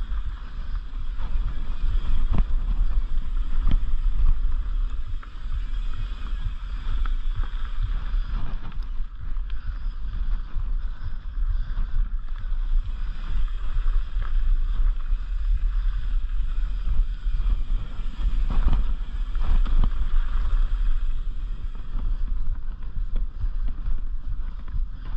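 Wind buffeting the microphone of a mountain bike's camera as the bike rolls fast down a dirt trail, with tyre noise over the loose dirt and frequent knocks and rattles from the bike over bumps.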